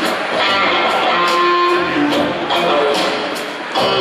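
Live trio music: electric guitar strumming and picking notes over upright bass and drums, with steady cymbal strokes keeping time. The level dips briefly near the end.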